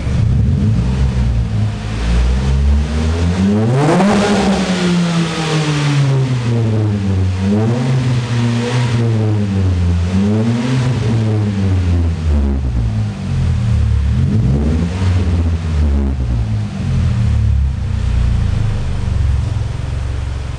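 2008 Mitsubishi Lancer's four-cylinder engine revved through a custom aftermarket exhaust while stationary. One big rev climbs about four seconds in, then comes a string of shorter blips, each dropping back to idle.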